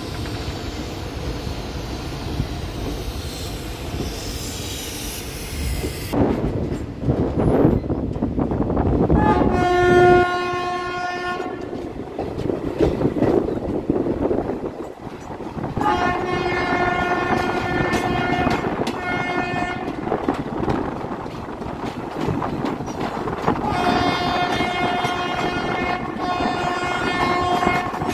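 Train horn sounding in five long blasts: one about ten seconds in, then a pair at about sixteen seconds and another pair near the end, over the rumble and wheel clatter of the train.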